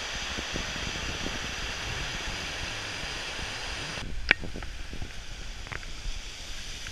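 Steady rush of a tumbling mountain stream and small waterfall, with a short high chirp about four seconds in.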